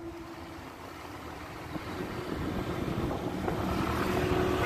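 Wind buffeting the microphone, with road noise from riding on a scooter, growing louder about two seconds in.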